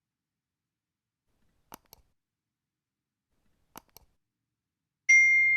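Faint paired clicks about every two seconds, then a loud, clear high-pitched ding about five seconds in that rings on and slowly fades.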